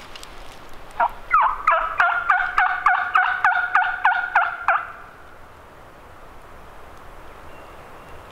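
Hen turkey calling made on a hunter's turkey call, close and loud: a run of about thirteen sharp notes, about three a second, each dropping in pitch, lasting about four seconds and then stopping, sent out to make a gobbler answer.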